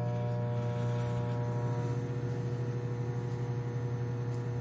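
Hamilton Beach microwave oven running with a steady low hum.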